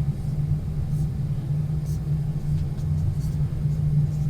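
A steady low hum of background noise, with a few faint ticks.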